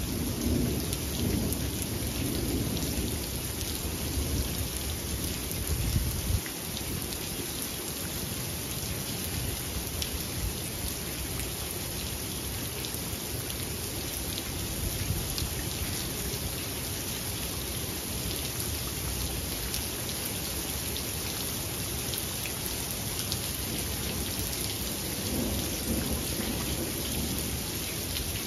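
Steady rain falling, with fine drop patter throughout. A low rolling rumble of thunder fills the first six seconds and stops suddenly, and a softer rumble swells up again near the end.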